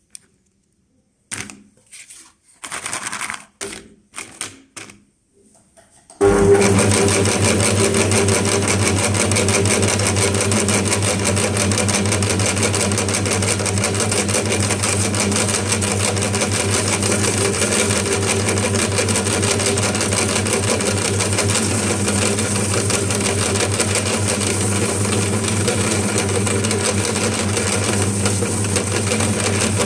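A few scattered rattling clicks, then about six seconds in the electric meat grinder's motor switches on and runs steadily with a constant hum while it grinds gummy bears.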